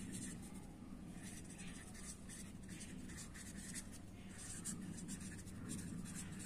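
Marker pen writing on paper: faint, irregular strokes as a line of handwriting is written.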